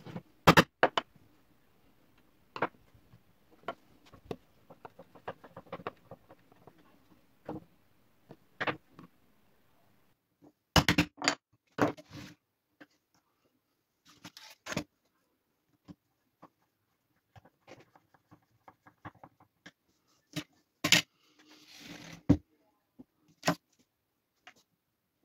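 Hand-tool and router handling on a plywood workbench: scattered sharp clicks and knocks as an awl marks through a plastic template and a plunge router is moved and its depth setting adjusted, with a brief rustle near the end. The router motor is not running.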